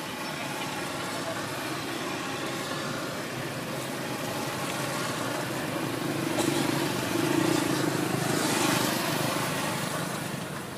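A motor vehicle passing, swelling to its loudest about six to nine seconds in and then fading, over steady outdoor background noise.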